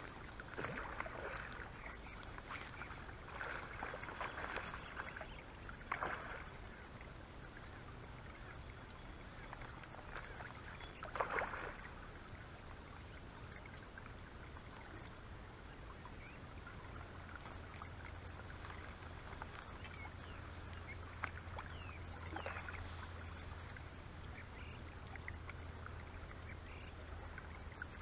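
Short bursts of water splashing at the river's edge, the loudest about eleven seconds in: a hooked asp being played and landed.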